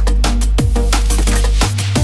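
Electronic drum and bass music with a fast, steady drum beat over a deep, sustained bass line.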